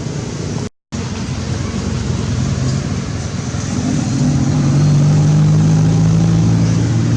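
A motor vehicle's engine running steadily, growing louder about four seconds in as it draws nearer. The sound cuts out completely for a moment just under a second in.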